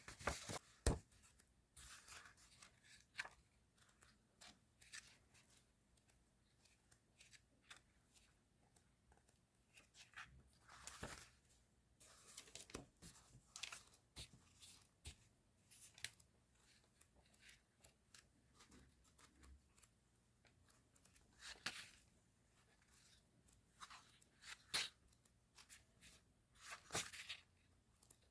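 Quiet, intermittent rustling, tearing and clicking of paper and plastic stationery packaging being handled and opened, in short separate bursts.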